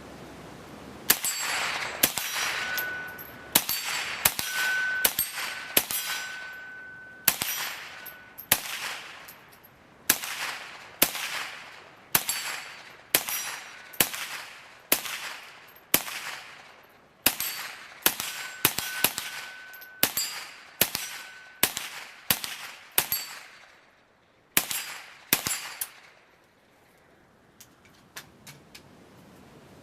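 A .22 LR AR-15 (CMMG dedicated .22 LR upper) firing a long string of semi-automatic shots, about one a second with some quicker pairs. Steel targets ring after many of the hits. The firing stops near the end.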